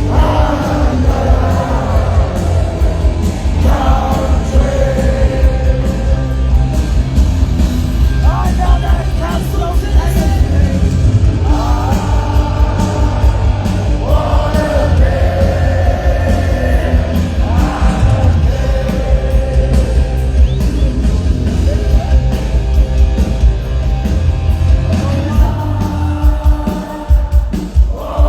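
A live punk rock band playing loudly through a PA, with heavy bass and a voice singing phrases every few seconds.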